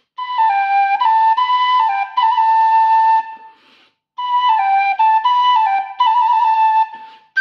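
Two Vasu khlui (Thai vertical flutes) in key C playing the same short stepwise, mostly descending phrase one after the other, with a brief pause about halfway. This is a tone-colour comparison: one flute is set for a clean tone, the other for a breathier tone with air noise in it.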